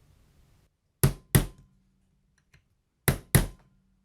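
Hammer striking metal: two pairs of sharp blows, the first pair about a second in and the second about three seconds in.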